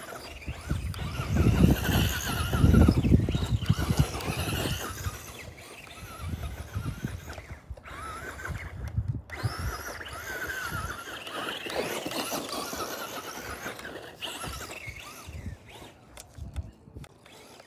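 Traxxas Rustler RC truck's electric motor whining as it drives, the pitch rising and falling with the throttle. It is loudest about two to four seconds in.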